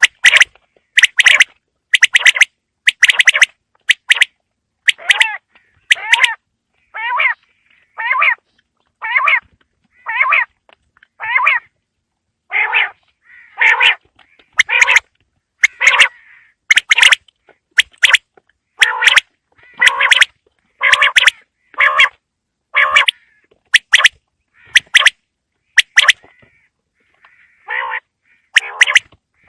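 A quail calling over and over: a loud, harsh call about once a second, with a short pause near the end.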